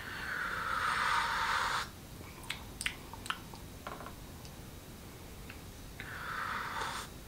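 A woman sipping tea from a mug, slurping twice: a longer sip of nearly two seconds at the start and a shorter one near the end. In between there are a few faint mouth clicks.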